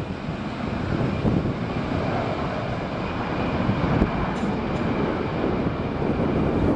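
Jet engines of an Airbus A321-211 (CFM56-5B turbofans) at high power during takeoff: a steady, dense rush of engine noise with a faint high whine that fades near the end.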